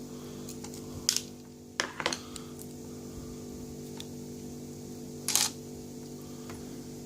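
A few short, sharp clicks and taps of small metal parts as a lock is handled, over a steady low electrical hum.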